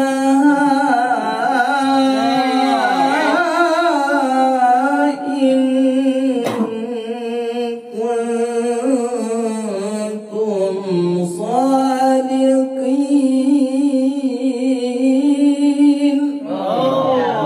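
A man reciting the Quran in the melodic tilawah style into a handheld microphone. He holds long, wavering, ornamented notes, with a few short breaks between phrases.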